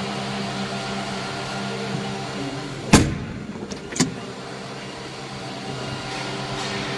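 Automated bottle filling and capping machine running with a steady hum of motors and cooling fans. Two sharp knocks come about a second apart near the middle, the first the loudest.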